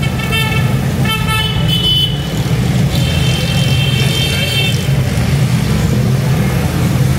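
Street traffic: vehicle horns honking three times, the last one held for nearly two seconds, over a steady low rumble of engines.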